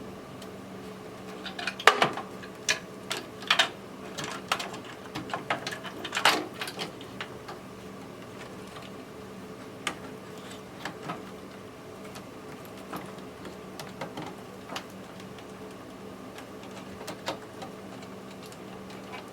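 Irregular clicks and rattles of cable connectors and wiring being unplugged and handled inside a desktop PC case. They come thick and fast for the first seven seconds and only now and then after that, over a steady low hum.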